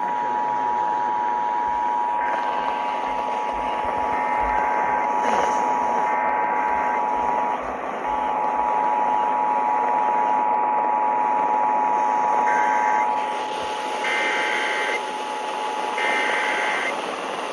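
Emergency Alert System attention signal: the steady two-tone alert (853 and 960 Hz sounding together) over radio hiss. It drops out for a moment about halfway through, and several short, fainter, higher-pitched tone bursts come and go on top.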